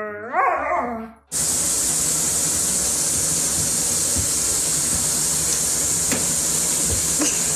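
A dog howls, its pitch rising and then falling, and stops about a second in. Then water runs steadily from a tap into a bathtub, a loud, even hiss.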